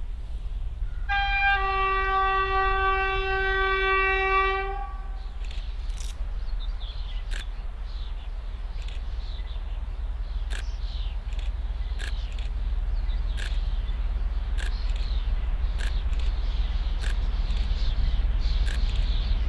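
SU45 diesel locomotive sounding its two-tone horn for about four seconds, the higher note first and the lower joining a moment later. Then comes the steady low rumble of its diesel engine as it approaches, growing gradually louder, with scattered faint clicks.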